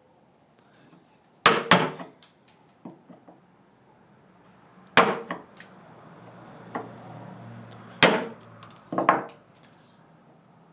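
Hand tools knocking sharply on wood, likely during cutting of tenons in beech: a quick pair of strikes, then single strikes a few seconds apart, then another quick pair near the end.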